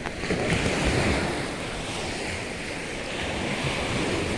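Sea surf washing onto the shore, with wind buffeting the microphone in irregular low gusts.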